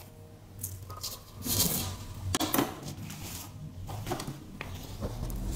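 Plastic spoon scraping and scooping coloured sand in a plastic cup, with gritty rustling of the sand. Then the sand-covered paper sheet is picked up and handled, with a few light taps.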